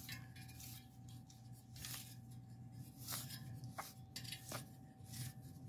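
Faint handling noise: a rubber inner-tube strip and a spoked bicycle wheel being moved and rubbed, a few short scrapes and rustles over a low steady hum.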